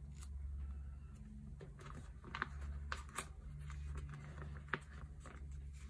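Sleeved photocard being slid into a pocket of an Ultra Pro Platinum 9-pocket binder page: scattered light plastic clicks and rustles, over a low steady hum.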